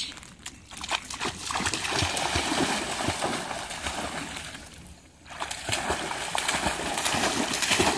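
A dog splashing and paddling through pond water after a thrown stick. The splashing breaks off briefly about five seconds in, then starts again.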